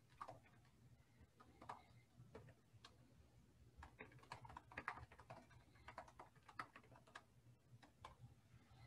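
Faint, irregular clicking of a computer keyboard being typed on, over near silence.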